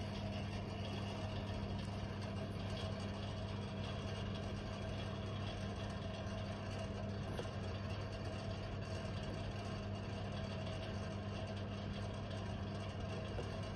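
Steady low machine hum, even throughout, with no separate clicks or beeps standing out.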